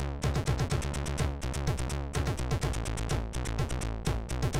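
Commodore 64 SID chiptune played by the 6581 sound chip: a quick, even beat of short noise-drum hits over a steady synth bass, with drum notes that drop in pitch.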